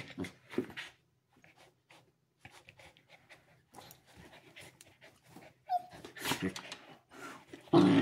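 Two huskies, an adult and a puppy, play-wrestling: panting and snuffling with short dog vocalisations. There is a brief whine a little before six seconds, and louder play noises in the last two seconds.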